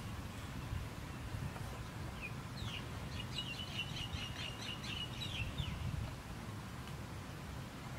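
A songbird calling in a quick run of repeated high chirps, about five a second, for around three seconds, over a low steady outdoor rumble.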